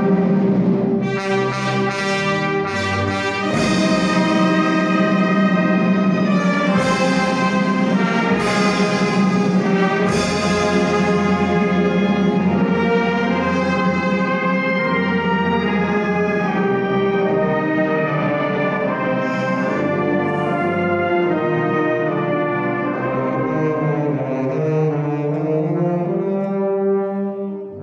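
Wind band of brass and clarinets playing a slow funeral march in sustained chords, with several sharp hits in the first ten seconds.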